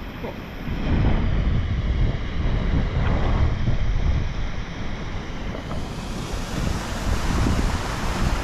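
Strong gusting wind buffeting the microphone: a low rumbling rush that swells and eases, with a brighter hiss joining about six seconds in.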